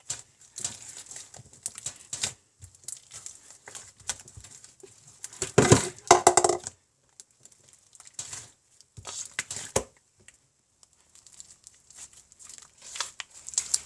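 Hands kneading slime and tearing small pieces of Model Magic clay into it: irregular sticky squishing, crackling and tearing sounds, with a louder burst a little under six seconds in.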